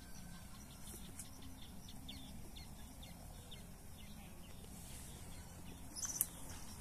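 Faint outdoor ambience: a steady low rumble with scattered faint bird chirps, and one sharp click about six seconds in.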